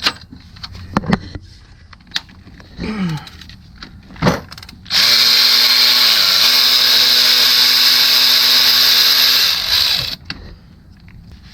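Handheld power tool running steadily for about five seconds, its pitch dipping briefly a second after it starts, while the intake cam phaser bolt is removed from a 3.6L V6. A few tool clicks and knocks come before it.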